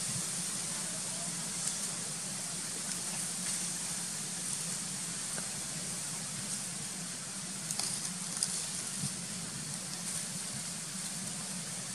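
Steady outdoor background hiss with a low hum underneath and a few faint clicks about eight seconds in.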